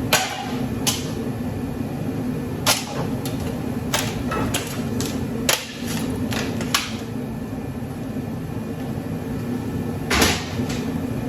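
Scrap metal pieces being handled and set down: about ten scattered knocks and clinks, one of the louder ones about ten seconds in, over a steady low hum.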